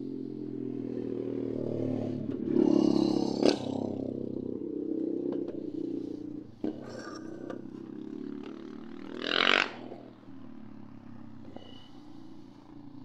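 A motor running steadily, with a few sharp knocks and two louder bursts of noise, about three and nine seconds in.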